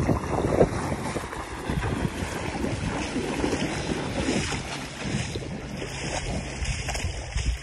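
Gusty wind buffeting the microphone, over waves lapping against a lake shore.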